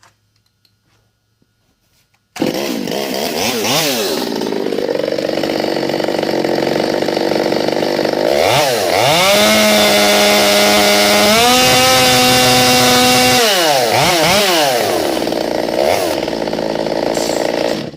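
Modified Stihl MS 200T two-stroke chainsaw, with a decked and ported cylinder, advanced timing and a custom exhaust, starting suddenly about two seconds in. Its throttle is blipped, then held wide open, climbing to a steady high pitch that steps higher at about 15,000 rpm, then drops back to a few more blips before the engine stops just before the end.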